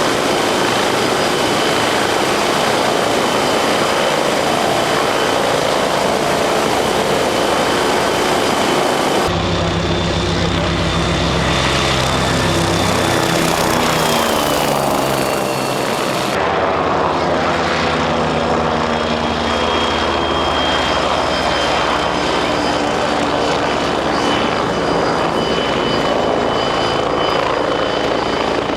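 MBB Bo 105 helicopter running: twin turboshaft engines with a steady high whine over the low beat of the rotor. The sound changes abruptly twice, about nine and sixteen seconds in, and in the middle stretch one whine falls in pitch.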